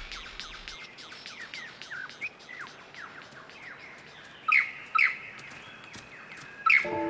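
Superb lyrebird singing in display: a fast run of short downward-sweeping notes, with loud ringing notes about two-thirds of the way through and again near the end. Music comes in at the very end.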